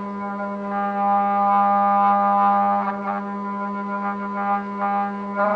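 Five-axis CNC router spindle running at one steady pitch while its cutter carves solid wood, the higher overtones of the whine swelling and dropping away every second or so as the tool bites in and eases off.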